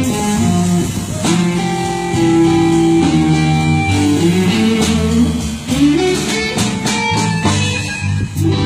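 Blues band playing, led by guitar over a steady bass line, with a few sliding notes near the end.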